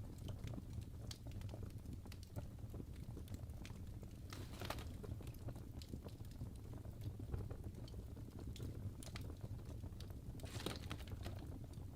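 Burning logs in a fireplace crackling, with scattered sharp pops over a low steady rumble of the flames. Two short hisses come through, about four seconds in and again near the end.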